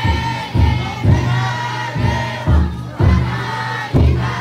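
The big taiko drum inside a futon daiko float beaten in repeated deep strokes, about two a second, while the crowd of bearers chants loudly together.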